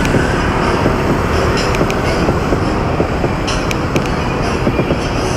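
Steady rumble and rush of a fat bike being ridden, tyre and wind noise on the microphone, with a few light clicks.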